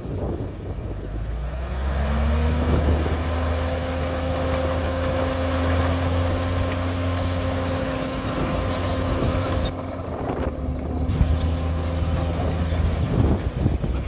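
Komatsu D51PX crawler bulldozer's diesel engine running with a deep, steady drone. About two seconds in, its pitch rises and holds level, then falls away near the end.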